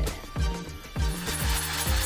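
Background music with a steady beat of low drum thumps over held bass notes.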